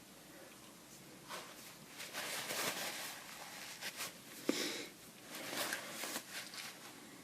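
Close-miked eating sounds from instant noodles: scattered mouth clicks and short noisy rustles, the loudest about four and a half seconds in.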